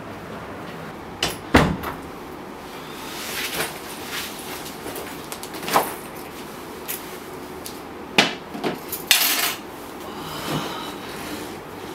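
A door opening and then shutting with a thud, followed by scattered light knocks and a short rattle as a phone and keys are set down on a glass-topped coffee table.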